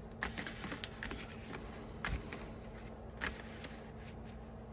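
Faint handling of CD singles and album items, with a few light, sharp clicks as the cases are set down and arranged.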